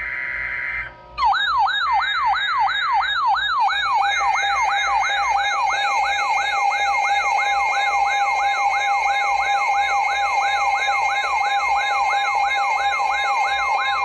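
Electronic siren yelping, a fast rising sweep repeated about two and a half times a second over steady tones, starting about a second in after a brief steady electronic tone.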